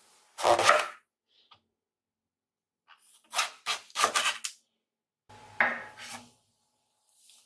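A chef's knife slicing through a raw purple eggplant and onto a wooden cutting board: rasping cuts in three bursts, the middle one several quick strokes in a row.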